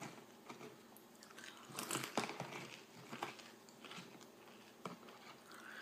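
Close-up chewing and crunching of tortilla chips, a run of crisp crackles loudest about two seconds in, with scattered crunches after.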